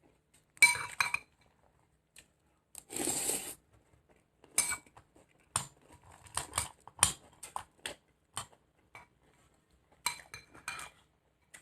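Spoon clinking against a bowl of cereal and milk, a string of separate sharp clinks, some ringing briefly, with a longer noisy stretch about three seconds in.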